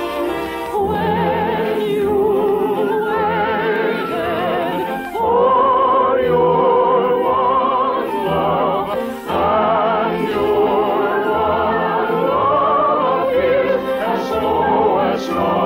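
Operatic singing with wide vibrato and long held notes, backed by orchestral music, from an old radio transcription recording.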